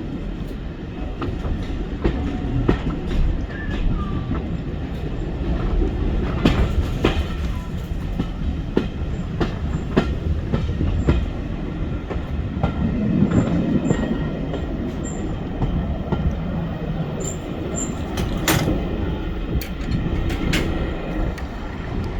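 Heritage railway train running on the line: a steady low rumble with irregular clicks and knocks from the wheels and rails.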